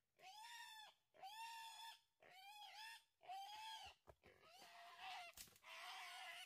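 Young wild boar squealing: a run of about five fairly faint, high, drawn-out squeals, each under a second long, turning hoarser and rougher near the end.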